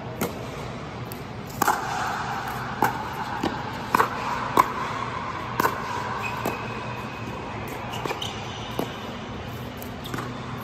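Pickleball paddles striking a plastic ball in a doubles rally: a sharp pop about once a second, at uneven spacing, over a steady low hum.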